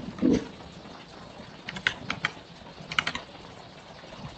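Computer keyboard typing: a few sharp key clicks in two small clusters, about two and three seconds in. A brief low sound comes just after the start.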